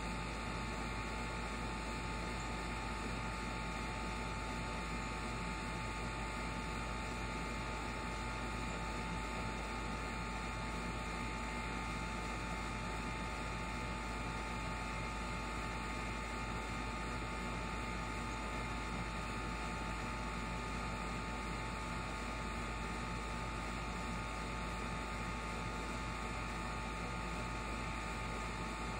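A steady, unchanging hum with hiss, holding the same level throughout with no separate events.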